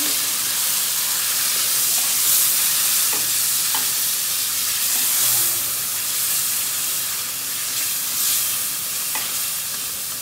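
Tomato paste frying in hot ghee with chicken and onions in a stainless steel pan: a steady sizzle as it is stirred with a steel ladle, with a few light knocks of the ladle against the pan.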